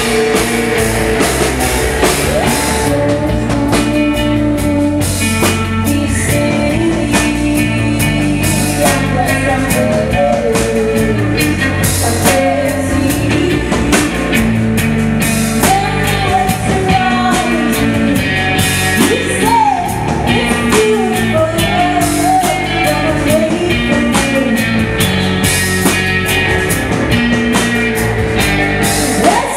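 Live rock band playing loudly on a drum kit, bass and guitars. A wavering melodic line runs through the middle of the passage.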